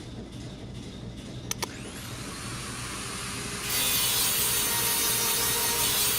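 Portable air grinder starting up as air is applied: two clicks, then a rising whine as it spins up, and about two-thirds of the way in a loud, steady grinding hiss cuts in. This is the danger of air being turned on while the grinder's switch is left on.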